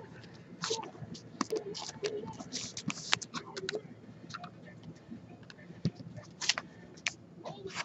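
Hands handling trading cards, packs and boxes on a tabletop: irregular light clicks, taps and short rustles.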